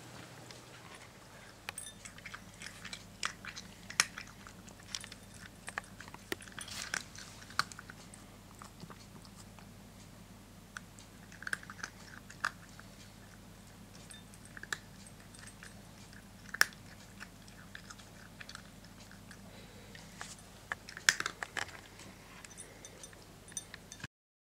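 A domestic cat eating dry kibble from a bowl, with irregular crunches and chewing over a faint steady low hum. The sound cuts off suddenly near the end.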